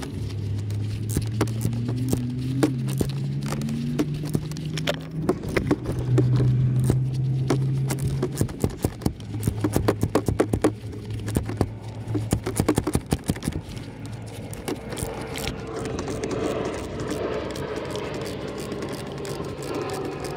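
Fasteners being tightened back up with a 7 mm socket on a DV6 diesel engine: a low hum that steps up in pitch during the first eight seconds, with a run of rapid clicking from about five to thirteen seconds in.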